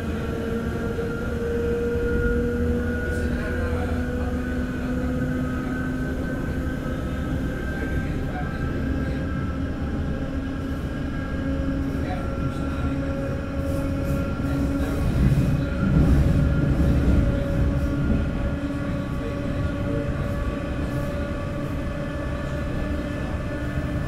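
Electric motors of a 'Red Rattler' heritage single-deck electric train whining as it runs, the whine rising slowly in pitch as the train gathers speed, over a steady rumble of wheels on the track. About two-thirds of the way through the rumble grows louder for a couple of seconds.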